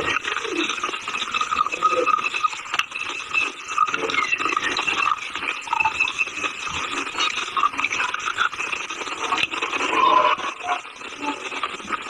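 Close-miked chewing of a dry, chalky material: a continuous, dense gritty crunching and grinding made of many small crackles, with no pauses.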